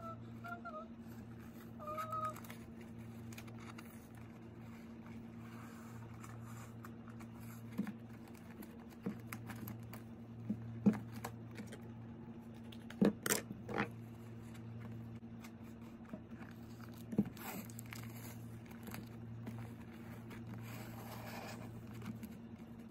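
Scattered short clicks and crinkles of clear sticky tape and a tissue-paper squishy being handled, over a steady low hum. A few brief high squeaky tones come near the start.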